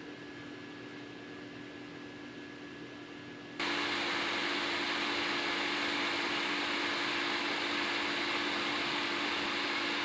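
Cooling fans of a 12-volt Peltier cooling module running with a steady whir and hum. About three and a half seconds in it steps up suddenly to a louder, hissier rush of air.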